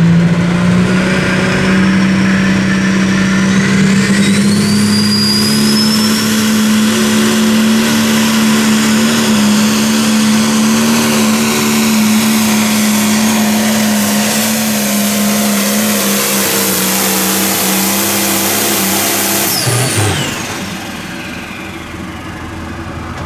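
International 5488 pulling tractor's turbocharged diesel engine held at full throttle through a pull: a loud, steady high-revving drone with a high turbo whine rising a few seconds in. About twenty seconds in the throttle comes off, the engine note falls away and the sound drops much quieter.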